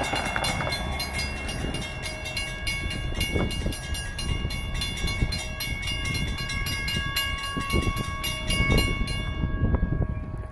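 Railroad grade-crossing warning bell ringing in rapid, even strokes over a low rumble, stopping suddenly near the end as the crossing gates rise.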